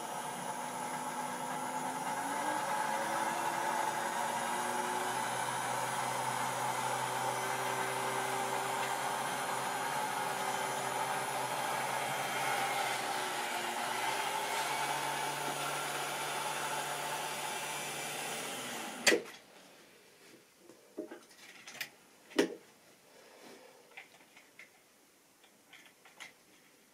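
Model railway train running along the track: a steady motor whine, with tones that slide upward, over the rumble of wheels on the rails. It cuts off suddenly with a sharp click about nineteen seconds in, followed by scattered light clicks and knocks as the rolling stock is handled.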